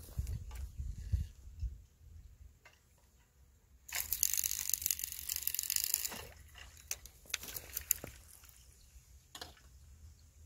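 Rustling and clicking handling noise close to the microphone, with a low wind rumble in the first two seconds and a loud two-second burst of hissing, crackling rustle about four seconds in.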